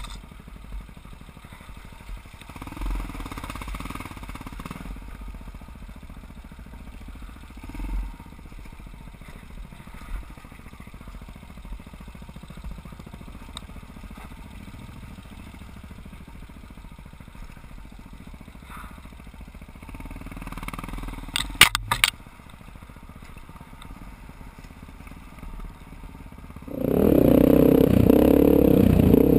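Big single-cylinder four-stroke enduro motorcycle running at low revs as it picks its way over a rocky trail, with a quick cluster of sharp knocks and clatter about three quarters of the way through. Near the end the sound suddenly gets much louder as the bike speeds up on open dirt road.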